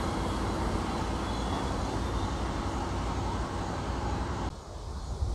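Steady low outdoor rumble with a hiss over it, cutting off abruptly about four and a half seconds in.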